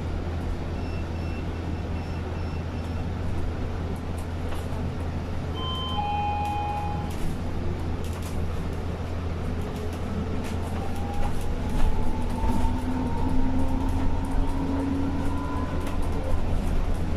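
Cabin of a BYD K9R battery-electric bus under way: steady low road rumble with light rattles. From about ten seconds in, the electric traction motor's whine rises in pitch as the bus picks up speed. A few short electronic beeps sound in the first seconds, and a brief tone comes about six seconds in.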